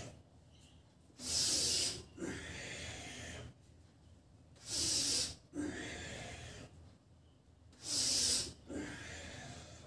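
A man's forceful breathing paced to a repeated yoga stretch: three times, a short sharp hissing breath is followed by a longer, softer breath, one cycle about every three and a half seconds.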